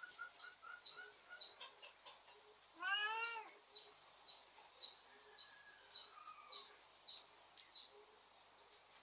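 A cat meows once, a single drawn-out call that rises and falls, about three seconds in. Behind it a small bird chirps over and over, short high chirps about twice a second.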